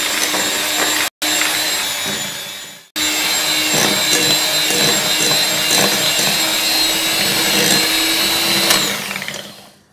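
Electric hand mixer running at a steady speed, its beaters whipping chocolate buttercream frosting in a glass bowl to make it light and fluffy. The steady motor whine drops out briefly about a second in and again about three seconds in, then stops about nine seconds in and fades away.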